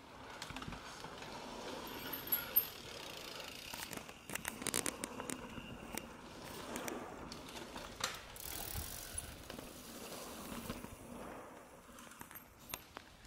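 Mountain bikes riding past, tyres on the dirt and grass, with freewheel hubs ticking and a scatter of sharp clicks from the bikes.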